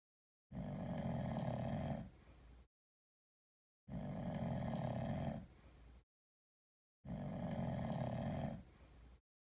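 Sleeping cat snoring: three even snores about three seconds apart, each a louder stretch followed by a shorter, softer tail, with silence between them.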